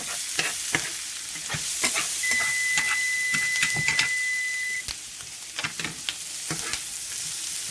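Shaved ribeye steak and onions sizzling in a hot pan, with a spatula repeatedly clacking and scraping against the pan as the meat is shredded and turned. A thin steady high tone sounds for about two and a half seconds midway.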